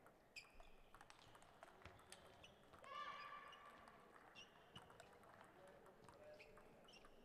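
Faint, irregular clicks of celluloid-type table tennis balls striking tables and bats, some with a short high ring, in a quiet sports hall; a brief pitched sound stands out about three seconds in.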